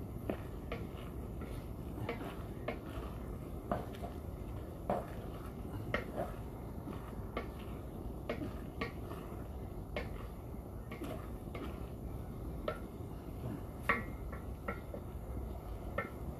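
A spatula clinking and scraping against a large aluminium pan as moist chopped meat is stirred: irregular knocks, about one or two a second, over a steady low rumble.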